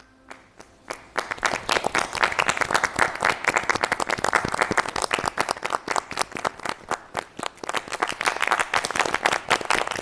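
A group of people applauding: a couple of single claps, then steady clapping from about a second in.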